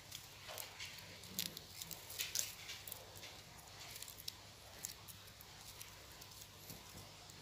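Faint handling noise: scattered light ticks and rustles as a coiled flexible wire lily-pipe cleaning brush is turned over in the hands.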